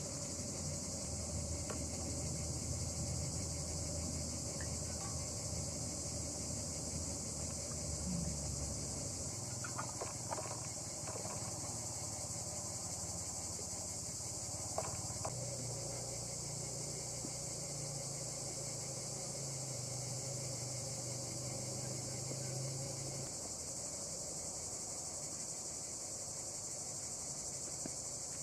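A steady, high-pitched chorus of insects trilling. A few faint clicks and knocks of a glass jar being handled sound around ten and fifteen seconds in.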